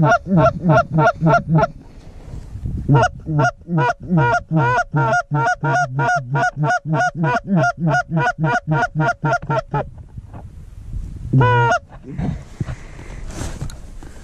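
Canada goose honks in rapid, evenly spaced runs of about four a second, with a short break, then one longer honk near the end.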